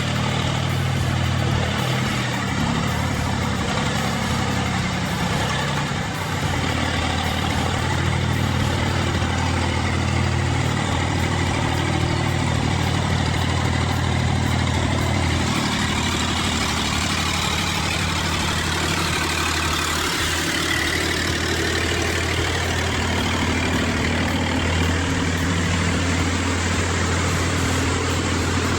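Heavy machinery engine running steadily, a continuous low hum under mechanical noise.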